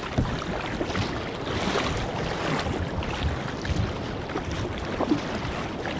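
Double-bladed kayak paddle pulling through seawater in alternating strokes, each stroke splashing, over water washing along the hull of a sit-on-top fishing kayak and wind on the microphone.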